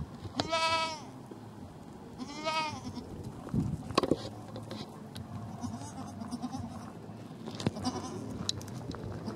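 A goat bleating twice, two high, arching calls about two seconds apart in the first three seconds. A few sharp knocks follow, the loudest about four seconds in.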